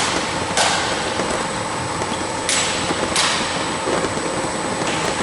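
Calibrex NOVAGRAM+ fruit grading machine running while sizing peaches: a steady machine noise with a faint constant hum, and a few sharp clacks at irregular intervals, about four in a few seconds.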